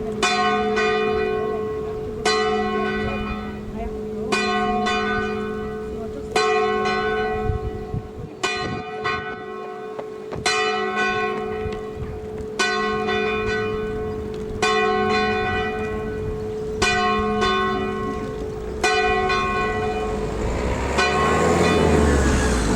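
A single church bell ringing for a service, struck about ten times at an even pace of roughly one stroke every two seconds, each stroke ringing on under the next. A rushing noise swells near the end.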